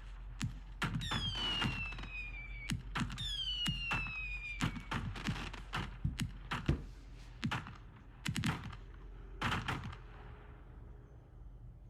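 Consumer firework cakes going off: a rapid run of bangs and crackles, with two falling whistles, one starting about a second in and one about three seconds in. The bangs thin out near the end.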